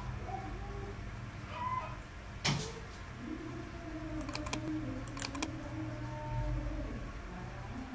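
Computer mouse clicks: a sharp click about two and a half seconds in, then a few quick clicks around four and five seconds in, over a steady low hum.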